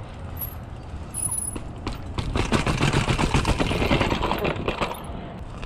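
Mountain bike riding down a flight of concrete stairs: a rapid, loud rattle of knocks as the tyres drop over each step and the bike shakes. It builds about a second in and is heaviest from about two seconds in until near the end.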